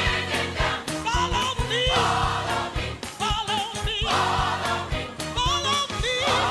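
Live gospel music: a man sings lead through a microphone, his voice sliding and bending between notes, over a Hammond-style organ and a steady beat.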